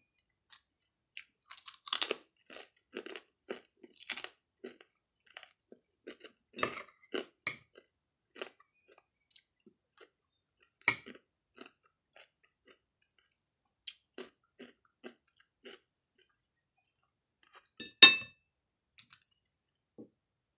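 Close-up chewing of longganisa sausage and rice, with irregular crunchy mouth sounds and small clicks of a spoon and fork. Near the end comes one louder, ringing clink of cutlery on the plate.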